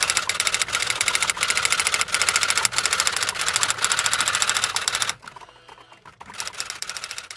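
Typewriter keys clattering in a fast, continuous run. The run breaks off about five seconds in, then starts again more quietly near the end.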